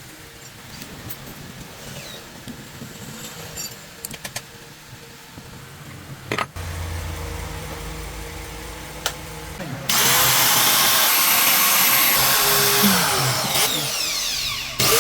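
Electric angle grinder (cutting machine) test-run after repair: a few handling clicks, then a low hum, then the motor switched on about two-thirds of the way in and running loud at full speed, with a brief dip before running on.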